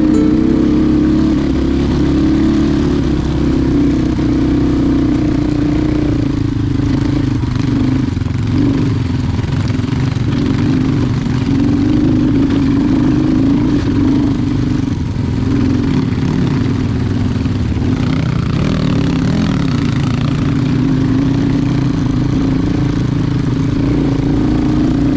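Motorcycle engine running steadily at cruising speed, its note wavering slightly up and down over a constant low rumble.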